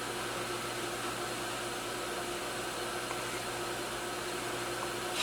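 Steady low hum and hiss of a 5.0-litre V8 engine idling.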